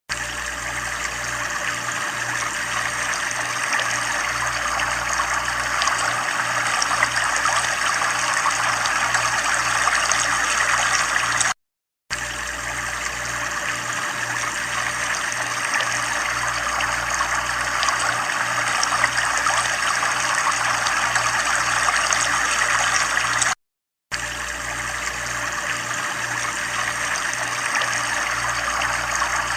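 Steady running, trickling water, broken by a short dead silence about every twelve seconds, twice.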